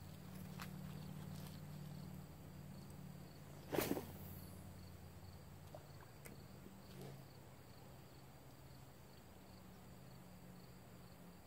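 Insects chirping in a faint, even pulse about two to three times a second, over a steady low hum. About four seconds in comes one short, sharp noise, the loudest sound.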